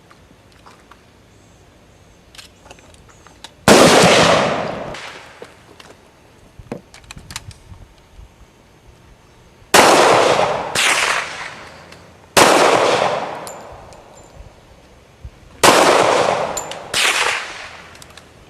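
Four shotgun shots at spaced intervals, each a sharp bang with a long fading tail; the second and fourth are each followed about a second later by another bang.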